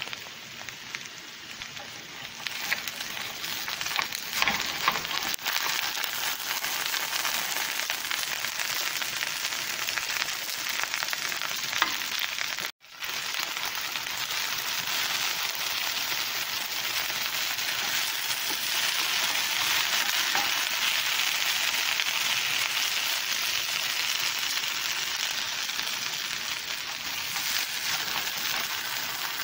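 Shredded raw potatoes sizzling steadily as they fry in a nonstick pan, with a few light crackles early on. The sound cuts out for an instant about halfway through, and the shreds are turned over near the end.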